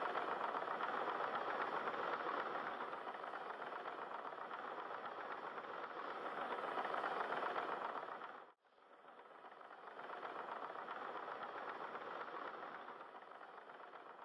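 Diesel engines of Liebherr PR 736 crawler dozers working under load, a steady mechanical din. The sound cuts out abruptly a little over halfway through and then comes back quieter.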